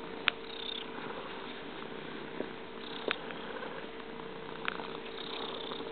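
Domestic cat purring steadily, close up, with a few sharp clicks, the loudest just after the start.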